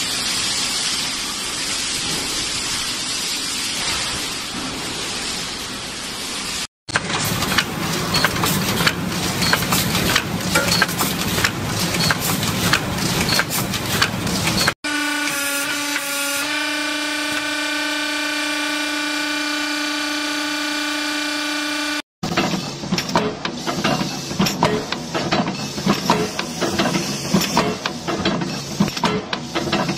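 Industrial metalworking machinery heard in a run of separate short clips, each cut off abruptly. First comes a steady noisy running sound, then dense rapid clattering of metal, then a steady hum of several even tones, then rapid clattering again.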